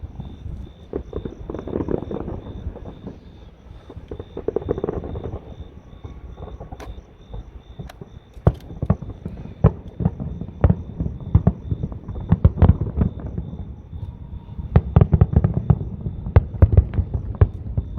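Fireworks going off: sharp bangs, a few at first and then coming thick and fast over the last few seconds.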